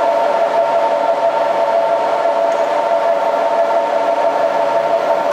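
Platform departure bell ringing steadily beside a standing E4 Max Shinkansen, a sustained electronic ring of several pitches at once with a slight rapid warble, signalling that the train is about to leave.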